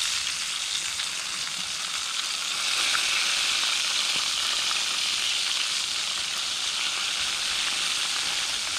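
Crow meat frying in about a quarter inch of cooking oil in a lightweight pan: a steady sizzle with a few small pops.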